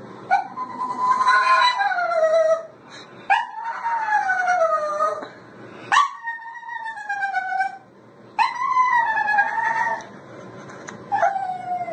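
Small wet dog howling: five long, drawn-out howls about a second apart, each sliding down in pitch.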